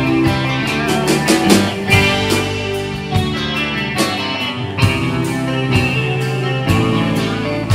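Live alt-country rock band playing an instrumental passage: electric guitars over bass and drums, with steady drum and cymbal hits.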